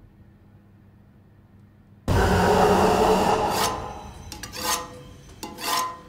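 A sudden loud rasping scrape about two seconds in, holding for over a second and then fading, followed by two shorter rasping strokes near the end.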